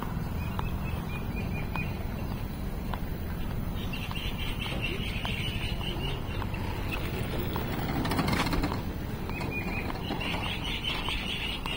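Busy street ambience: a steady low rumble with scattered light clicks and knocks. There are two stretches of high, choppy chattering, a little before halfway and again near the end, and a brief louder swell of noise a little past two-thirds of the way.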